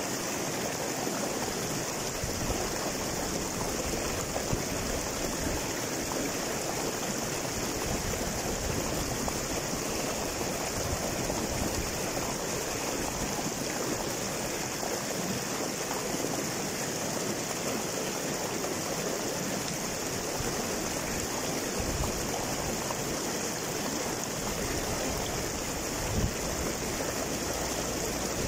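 Small river rushing and splashing over boulders in a short cascade: a steady, even rush of water with no change.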